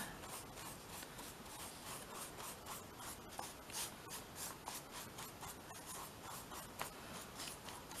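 Flat paintbrush spreading matte medium over a textured, gessoed journal page: quick, repeated, faint brush strokes that scratch and swish.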